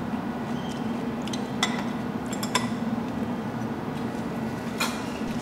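A handful of light clinks and clicks of eating utensils against dishes, spread across a few seconds, over a steady low hum.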